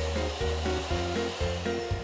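Background music with a melody of short notes over a bass line, laid over the steady hiss of a vacuum cleaner.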